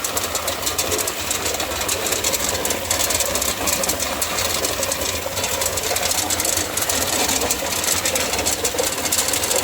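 Tube ice machine with a Refcomp compressor running: a steady mechanical hum overlaid with a dense, fast clicking rattle.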